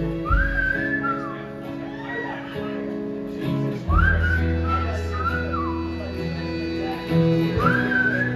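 Live band playing an instrumental passage on guitars, bass, drums and keyboards, with a high gliding melody line that comes in three short phrases: near the start, about four seconds in, and near the end.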